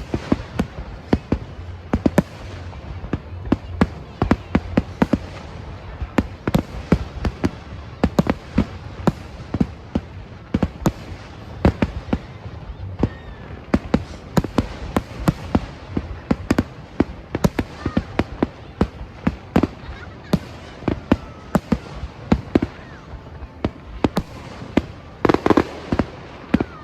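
Aerial fireworks display: a dense, irregular run of sharp bangs and crackles, several a second, with a louder, longer bang near the end.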